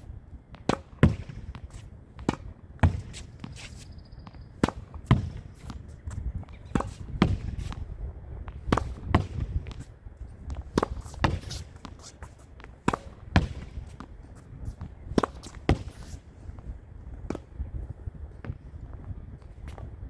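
Tennis ball hit against a practice wall: a sharp pop of each racket strike followed closely by the smack of the ball off the wall and its bounce, repeating about every one to two seconds in a steady rally. The hits stop a few seconds before the end, leaving wind noise.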